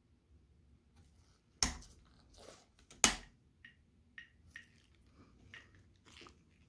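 Homemade Geiger counter being switched on: two loud, sharp clicks about a second and a half apart. Then come about five short, high ticks over the next three seconds as it detects radiation from the uranium ore sample beside it.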